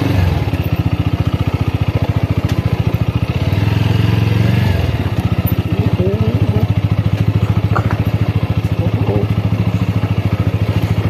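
Single-cylinder motorcycle engine running at low revs, chugging in quick even pulses while the bike is ridden slowly over a rocky dirt track. It gets louder for about a second around four seconds in as the throttle is opened a little.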